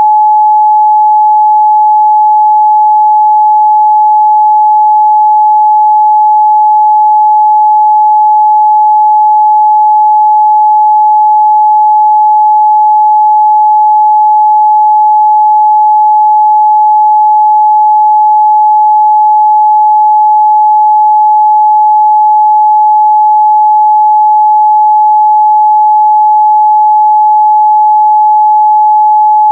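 A steady, loud 852 Hz sine-wave test tone, one pure pitch held without change.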